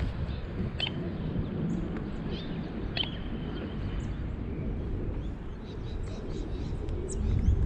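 Steady low outdoor rumble with a few short, faint bird chirps scattered through it.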